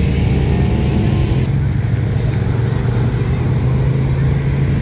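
Side-by-side UTV engines running, a steady low drone as the vehicles move out in a line.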